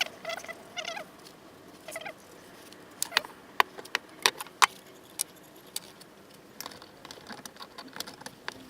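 A few short squeaks from a marker tracing an outline on a metal plate, then scattered light clicks and taps of tools and metal being handled on the bench.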